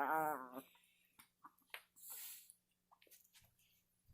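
Chihuahua's wavering, warbling growl-like vocalization, its pitch wobbling rapidly, trailing off about half a second in; then a few small clicks and a short breathy hiss.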